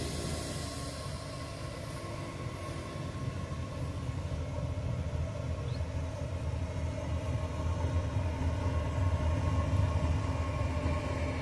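GE ES43BBi diesel-electric locomotive approaching and passing at the head of a freight train: a deep diesel engine rumble that grows louder as it draws near, peaking about nine to ten seconds in, with a thin steady whine over it.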